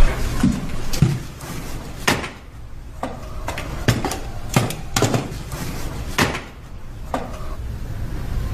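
Objects being handled and set down on a wooden office desk: about a dozen irregular knocks and clunks.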